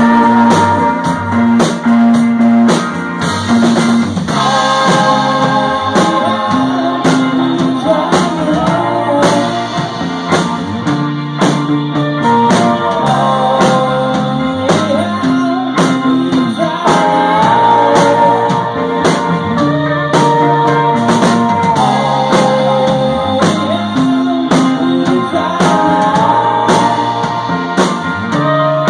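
A rock band playing live, with a stepping bass line, electric guitar and a drum kit keeping a steady beat.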